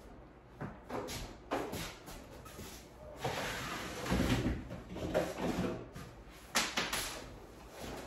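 Knocks and clatter of a microwave oven being handled and shifted on a kitchen counter: a few separate knocks, a longer stretch of handling noise around the middle, and two sharp clacks near the end.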